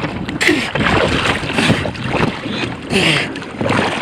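Strong wind buffeting the microphone over water rushing and splashing around a Fireball sailing dinghy as it capsizes after a failed tack, with two louder rushes about half a second in and about three seconds in.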